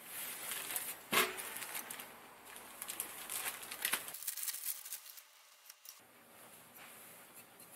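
Clear plastic packaging bag crinkling and rustling as a circuit board is unwrapped, with a sharp crackle about a second in. It goes quieter after about four seconds, then crinkles faintly again.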